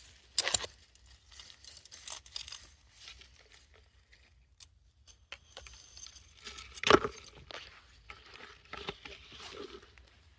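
Irregular rustling and crackling, with two louder crunches about half a second in and about seven seconds in, like dry leaves or brush being pushed through and stepped on.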